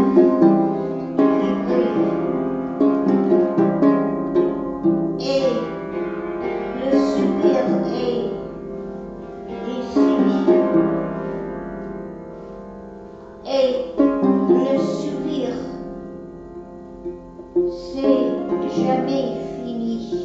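Slow music with plucked strings and held notes.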